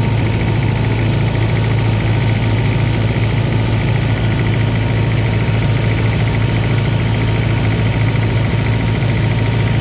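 Tour boat's engine running steadily at constant speed, a loud even hum that holds without change.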